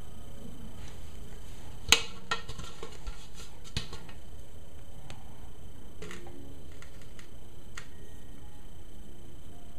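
Hard plastic containers being handled, with a few sharp clicks and knocks of plastic and a wooden stick. The sharpest click comes about two seconds in, with lighter ones scattered after it.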